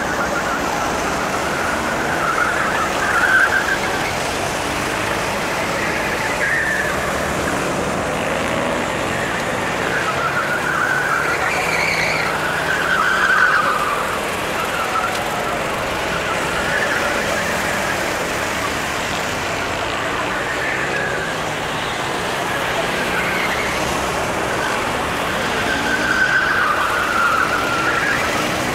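Engines of several Sodi RT8 rental go-karts running around the circuit, their pitch rising and falling as they accelerate out of corners and pass by, with louder swells at a few close passes.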